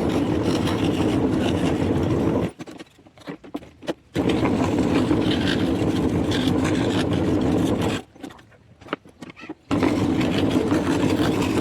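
Homemade scroll saw running in three runs of a few seconds each, stopping briefly in between.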